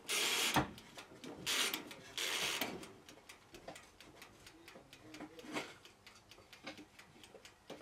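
Kitchen handling sounds: three short rustling, scraping bursts in the first three seconds, then scattered light clicks and taps.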